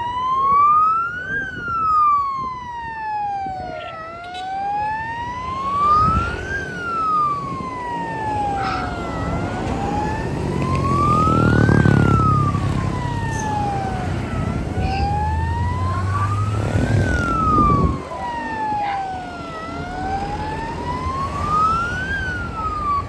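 A siren wailing slowly, rising and falling about once every five seconds, over the engines of vehicles passing close by, which are loudest about halfway through and again a little later.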